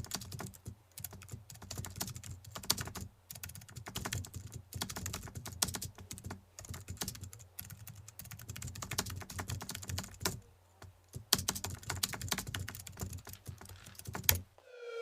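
Fast typing on a computer keyboard: irregular runs of key clicks with short pauses, the longest about ten seconds in, over a low steady hum. The typing stops shortly before the end.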